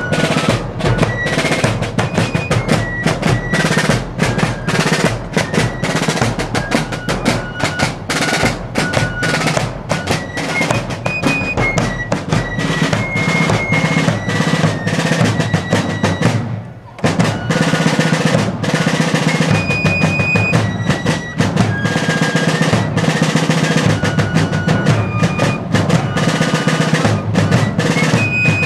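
Fife and drum corps playing: a high fife melody over rolling snare field drums and a bass drum. There is a brief pause about seventeen seconds in, and then the playing starts again.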